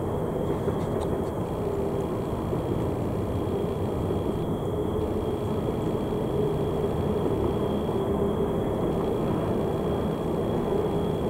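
Freight train rolling past on the curve: a steady rumble with a faint, high, steady squeal of wheel flanges on the curved rail.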